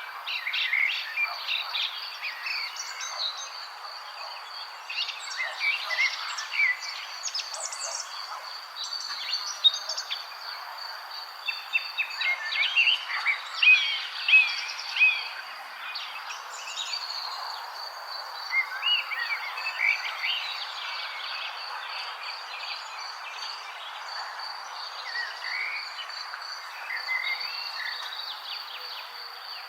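Several birds chirping and singing in quick, overlapping calls, busiest about halfway through. A steady high trill and a soft hiss run underneath.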